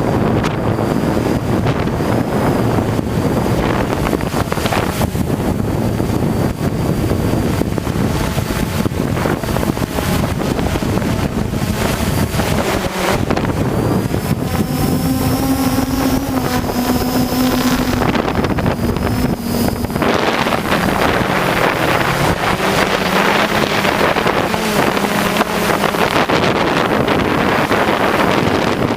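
Wind buffeting the microphone, with the pitched hum of a hexacopter's motors and propellers under it. The hum is clearest for several seconds around the middle, then settles slightly lower.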